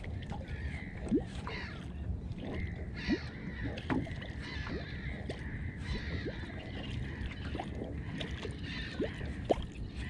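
Small waves lapping and gurgling against a boat's hull, with a few short plops, over a low steady rumble.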